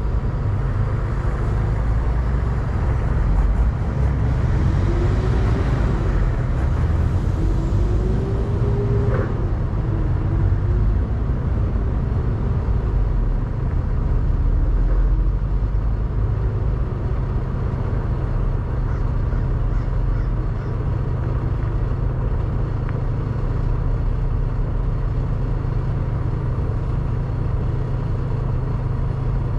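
Semi truck's diesel engine idling, a steady low rumble. During the first ten seconds a fainter engine note wavers up and down.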